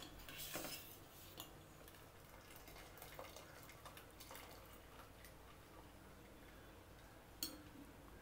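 Faint, scattered clinks of stainless steel kitchenware, with one sharper metallic clink and a brief ring near the end; near silence in between.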